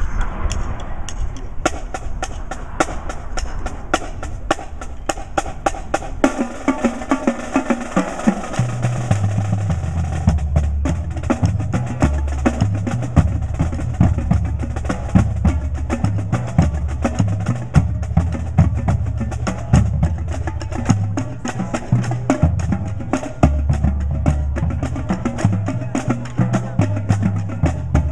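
Percussion ensemble playing a fast, steady pattern of drum and wood-block strokes. About eight seconds in, a low, pitched bass line joins underneath.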